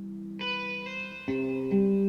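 Background music: a guitar playing ringing notes with reverb, a new note or chord coming in about every half second.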